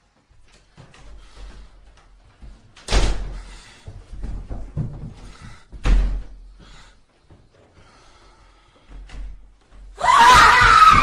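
Two loud slams about three seconds apart, each trailing off in a low rumble, with faint knocks and thuds between them; near the end a loud, harsh sound with a wavering pitch cuts in.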